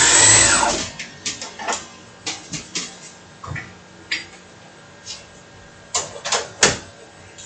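CNC lathe axis drive making a rapid move during an automatic tool-measuring cycle, the motor whine rising then falling in pitch as the carriage speeds up and slows, stopping just under a second in. Scattered mechanical clicks and knocks follow, with the loudest cluster around six seconds in.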